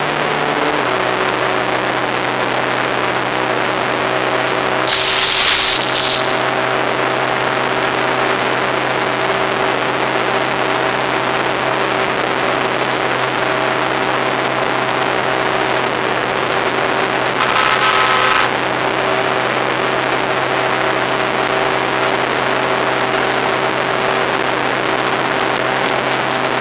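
Motorcycle running at a steady highway speed of about 145 km/h, its engine holding one note under heavy wind rush, with a slight drop in pitch about a second in. Two short, louder bursts of noise come about five seconds in and about two-thirds of the way through.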